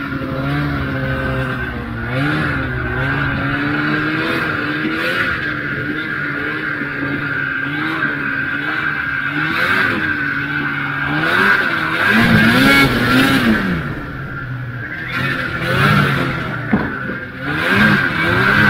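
Old Ski-Doo Formula Z snowmobile's two-stroke engine running under load through deep powder, its pitch rising and falling again and again as the throttle is worked, the biggest swell a little past the middle. A steady high whine runs underneath, with bursts of rushing noise near the end.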